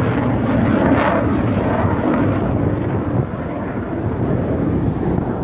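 Engine noise of an aerobatic airplane trailing smoke overhead, a steady rushing sound that drops off about three seconds in, with some wind on the microphone.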